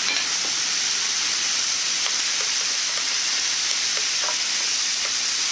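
Beef and mushrooms frying in sesame oil in a non-stick pan: a steady sizzling hiss with small scattered pops and ticks as chopsticks spread freshly added enoki mushrooms among the browned meat.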